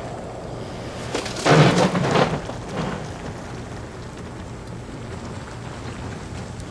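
A loud rushing, rumbling burst of noise about a second in, lasting about a second, followed by a weaker one, over a steady low hum.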